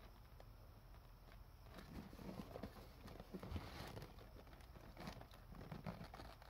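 Faint handling noise of a cardboard pastry box being turned in the hands: small, irregular taps and rustles of fingers on the paperboard.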